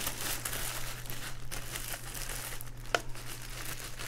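Clear plastic bag crinkling and rustling as it is handled and pulled off a CPU cooler's pump block, with one sharp crackle about three seconds in.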